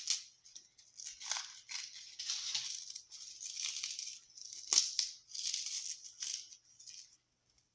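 Dry bread crumbled between fingertips into breadcrumbs over a casserole: a run of irregular, crisp crackling rustles, with one sharper crack about two-thirds of the way through.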